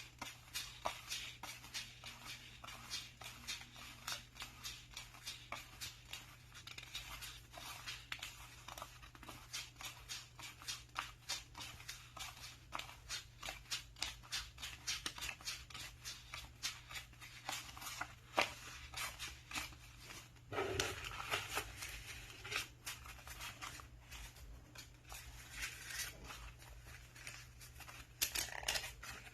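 Paper banknotes being counted by hand, each note flicked off the stack with a crisp papery snap, about two a second. About two-thirds of the way through there is a longer rustle of the notes being handled, and a faint low hum runs underneath.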